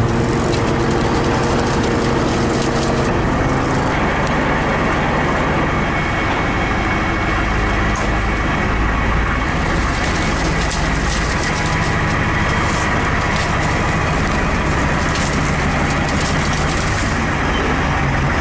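Tow truck's engine running steadily as the truck backs its wheel-lift in under the old truck's front bumper, with the engine note shifting a few times.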